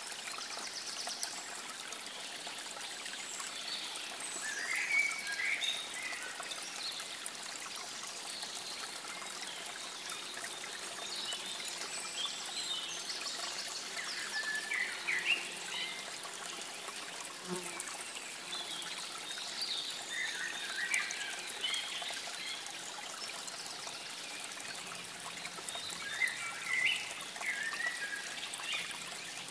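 Water trickling steadily, with small birds chirping in short bursts of notes every several seconds.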